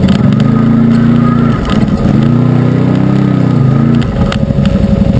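Arctic Cat Wildcat UTV's V-twin engine running under way. It is steady at first, rises and falls in pitch near the middle as the throttle is worked, then settles into an even, fast pulsing, with a few sharp knocks over the top.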